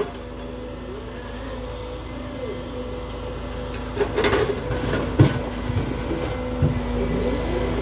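Log truck's knuckle-boom loader crane unloading logs: the truck engine drives the hydraulics, running steadily with its pitch rising and falling as the crane moves. Wooden clunks of logs knocking together in the grapple come about four and five seconds in.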